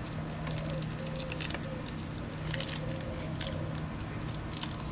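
Plastic toy packaging crinkling and crackling in hands as it is opened, a scatter of small irregular crackles over a steady low hum.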